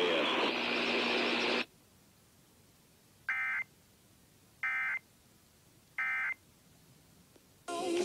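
Emergency Alert System end-of-message code: three short two-tone digital data squawks, each about a third of a second long and about a second apart. Before them, the relayed broadcast audio cuts off about a second and a half in, and broadcast sound returns briefly near the end.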